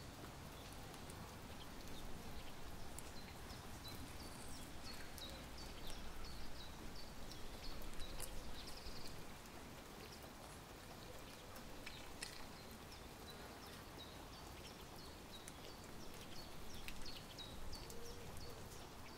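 Faint birdsong ambience: many short, high chirps from small birds throughout. Over it come quiet, irregular scratches and rustles as fingernails pick at the backing paper of a sticker.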